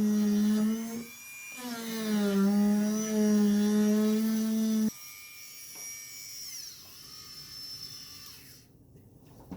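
Dremel rotary tool with an abrasive bit whining at high speed as it grinds around a brass threaded insert in a kayak hull. The whine drops out briefly about a second in, and its pitch sags under load. Shortly before the halfway point the grinding stops abruptly, and a fainter whine falls in pitch as the tool spins down.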